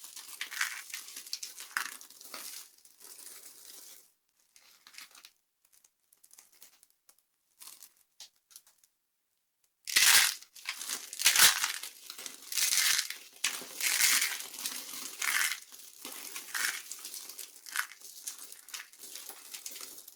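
Dry soap being crushed and crumbling: dense crackling crunches that thin out after about four seconds to a few faint crumbles. After a brief near-silent pause, loud crushing crunches resume at about ten seconds and come in quick runs to the end.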